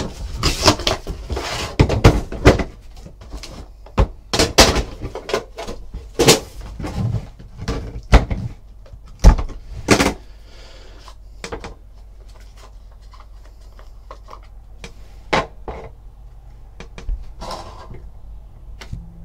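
Cardboard trading-card boxes handled on a tabletop: knocks, scrapes and sliding as an inner box is pulled from its sleeve and set down, with cards handled. The handling is busiest in the first ten seconds, then thins to scattered clicks and taps.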